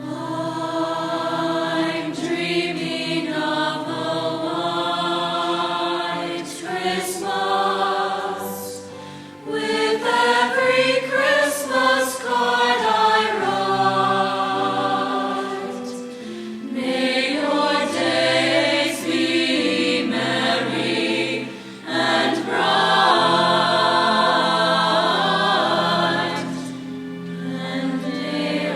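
High school choir singing together in several-part harmony, with long held chords and short breaks between phrases.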